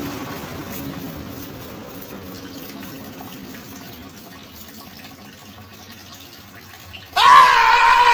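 Water running and splashing on wet ground, fairly quiet and steady. About seven seconds in, background music starts loudly on a long held note.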